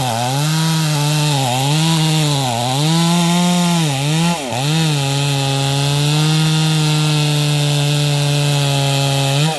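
Stihl chainsaw at full throttle making a plunge cut into hard wood. The engine pitch sags and recovers several times in the first half as the chain bites and bounces, then holds steady through the rest of the cut, with a brief dip near the end. The cutter takes the bouncing for a factory-ground chain that is too aggressive for the hard, knotty wood.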